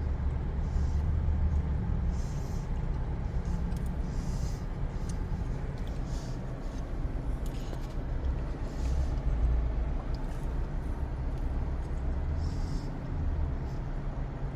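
Quarter pounder and fries being eaten: short spells of chewing and paper-wrapper rustling every second or two over a steady low rumble.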